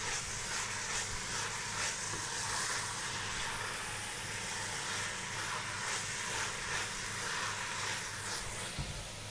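Marinated beef and lemongrass sizzling as they are stir-fried in a stainless steel pot, with faint repeated strokes of the stirring spoon over a steady low hum. A soft low knock comes near the end.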